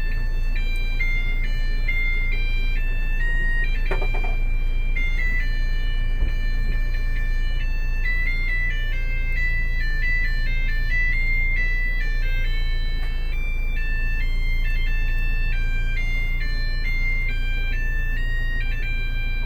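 A simple electronic tune of single high beeping notes plays on without a break, over a low steady rumble inside a car.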